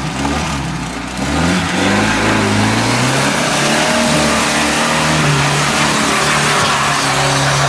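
UAZ-469 engine revving hard under load as the 4x4 drives through a muddy creek and climbs the bank, with water splashing. The revs rise about a second and a half in, then hold high.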